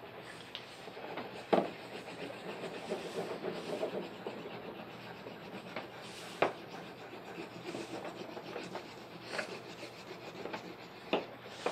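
Wax crayon rubbing back and forth on paper on a tabletop as the sky is coloured in, with three short sharp knocks spread through.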